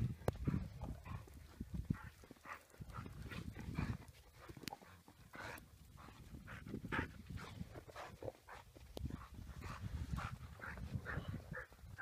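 A dog panting and sniffing close by in short, irregular huffs, over a low rumble.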